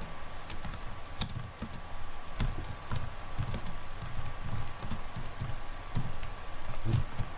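Typing on a computer keyboard: an irregular run of key clicks as a line of text is typed.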